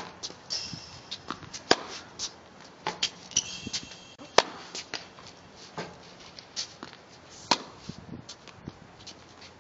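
Tennis rally on a hard court: sharp pops of the racket striking the ball about every three seconds, with lighter knocks of the ball bouncing between.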